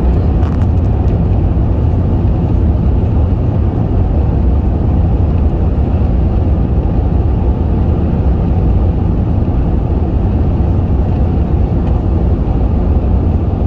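Loud, steady low rumble of engine and airflow noise inside the cabin of an Airbus A380 airliner.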